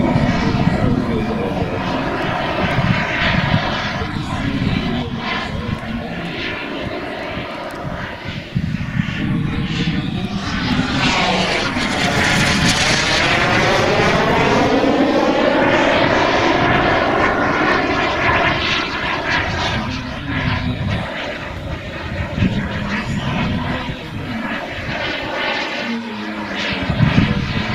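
Turbine engine of a giant-scale radio-controlled Tornado jet running at flying power during a display flypast. It grows loudest as the model passes about halfway through, with its tone sweeping as it goes by, then eases off as it moves away.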